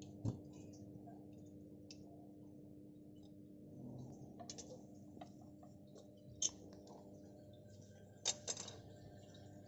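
A few sharp metallic clicks and clinks of loose steel bolts and washers being handled on a transformer's steel tap-changer cover, over a faint steady low hum. The loudest clicks come about a third of a second in, near the middle, and twice in quick succession near the end.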